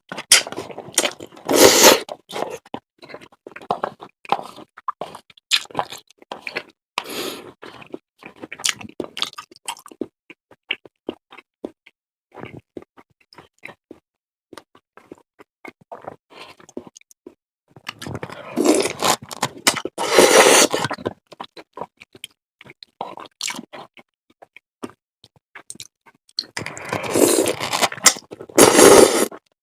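Close-miked eating: steady chewing with many short wet mouth clicks, broken by three louder noisy stretches, one about a second in, one about two-thirds of the way through and one near the end.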